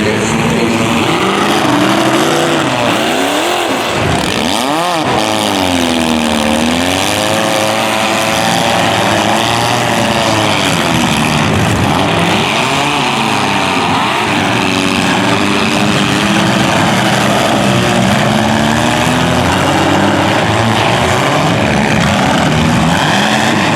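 Demolition derby cars' engines revving hard, pitch rising and falling again and again over a constant loud din of motors.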